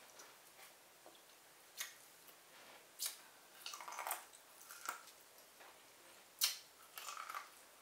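Someone biting kernels off a boiled corn on the cob and chewing: a string of short, sharp crunches and mouth smacks, about one a second, the loudest a little past the middle.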